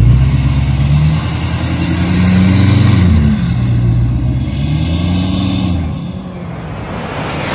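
Deleted, straight-piped L5P Duramax 6.6-litre V8 turbodiesel accelerating hard. The engine note climbs in pitch, drops once about three seconds in as it shifts, then climbs again. A high whistle rises and falls over it twice, and the sound fades near the end as the truck pulls away.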